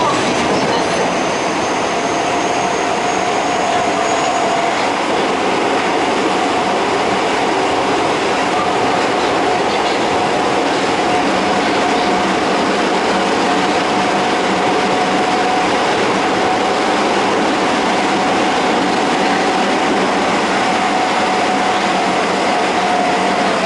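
Osaka Metro 22 series subway train with Hitachi GTO inverters running between stations, heard inside the passenger car: a loud, steady mix of wheel and tunnel noise. A steady whine runs through it, and a faint high whine rises slowly over the first few seconds, then fades.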